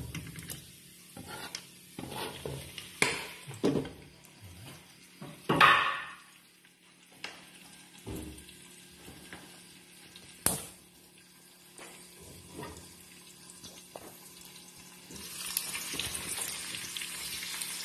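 Chopped pork frying in a pan, sizzling under a glass lid, with scattered knocks and clinks of the lid, cutting board and plastic spatula against the pan. Near the end, with the lid off and the meat being stirred, the sizzle gets louder and steadier.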